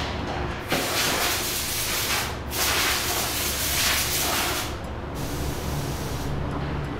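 Spray gun hissing in two long bursts as a coating is sprayed onto a barrel-drum (oke-daiko) shell: the first starts about a second in, and the second, after a brief break, runs until near the five-second mark. A steady low hum continues underneath.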